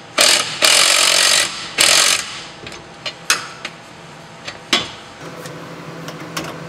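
Socket ratchet tightening the steel bolts and nuts that clamp the trailer-mover motors to their brackets: three bursts of rapid clicking in the first two seconds, then a few single clicks and knocks. From about five seconds in, a faint steady low hum, as a cordless drill with a socket starts on the bolts.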